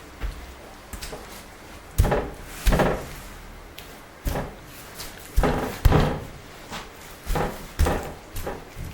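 An irregular series of about ten sharp knocks and bangs, each with a short ringing decay, loudest in the middle.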